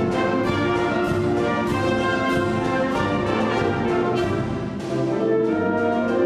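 Concert wind band playing a full, sustained passage led by brass, many held notes sounding together over repeated accents. Shortly before the end the level dips briefly, then the ensemble comes back in fuller.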